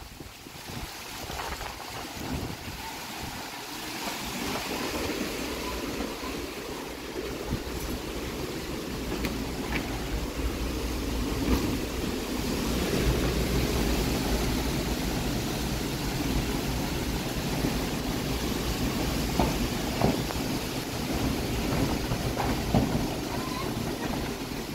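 Typhoon wind and rain. Gusts buffet the microphone in a heavy low rumble that builds from about four seconds in, with rain striking an umbrella overhead.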